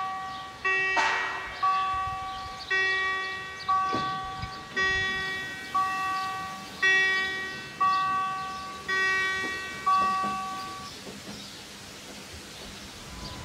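Level crossing warning bell ringing about once a second while the barrier booms lower, stopping about eleven seconds in once the barriers are down.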